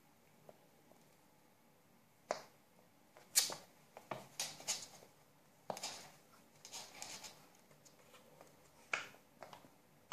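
Cats' paws and claws scrabbling, tapping and thudding on a wooden floor as an adult cat and a kitten play-fight. The sharp clicks and scuffs come irregularly, in quick clusters, starting about two seconds in.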